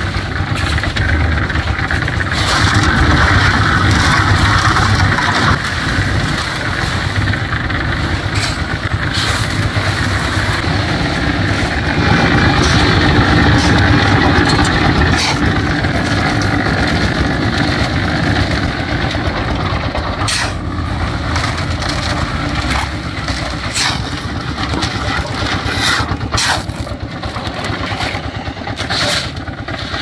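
Engine-driven portable drum concrete mixer running steadily, its rotating drum churning wet concrete. Sharp knocks and clatters come often in the second half.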